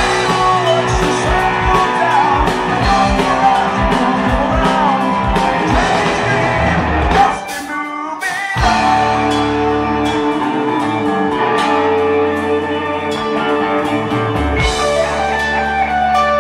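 A live heavy metal band playing: electric guitars over fast drums. About seven seconds in, the band breaks off briefly, then comes back with long, held guitar chords.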